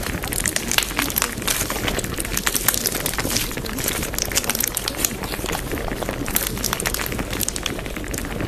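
Steady, dense crackling noise: a constant hiss full of small irregular pops and clicks, used as the masking background track of a subliminal audio.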